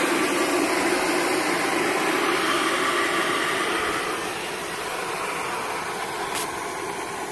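A motor running steadily with a constant hum and hiss, easing a little quieter about four seconds in, with a short sharp tick near the end.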